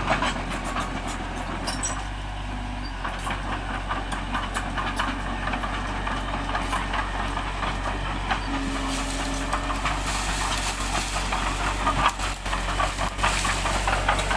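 Bulldozer's diesel engine running steadily, with repeated metallic clicks and clanks over it.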